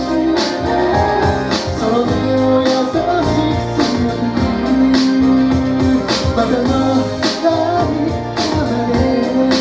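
Pop song with a steady drum beat, keyboards and a bass line, with a sung line held over the music.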